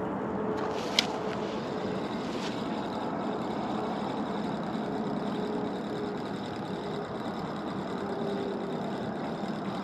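Steady machine hum with a faint constant tone, like an engine running at a distance, with one sharp click about a second in.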